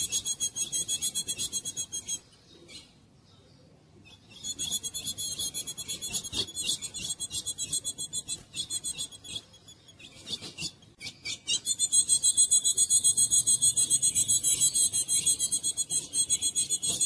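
Female azulão (ultramarine grosbeak) calling: a rapid, high-pitched chatter of many notes a second. It breaks off for about two seconds soon after it starts, comes back, thins to a few scattered notes past the middle, then runs on unbroken.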